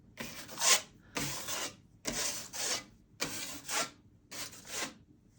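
Drywall knife scraping across a mudded wall patch, spreading joint compound in five strokes of about half a second each, roughly one a second.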